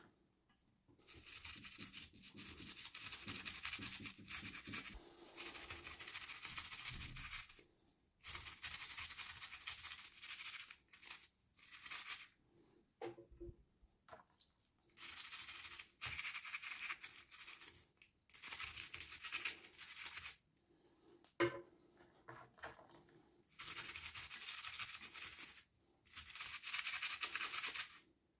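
Toy packaging being rubbed, torn and crinkled open by hand, in about a dozen scratchy strokes of one to three seconds each with short pauses between.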